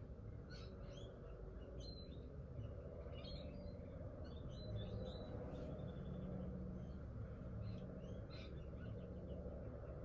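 Faint bird chirps coming in short clusters, a few quick notes at a time, repeated several times over a low steady background hum.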